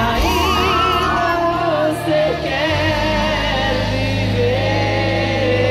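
Live pop band playing through a stadium PA, with a singer holding long, wavering notes without words. A heavy bass comes in about halfway through.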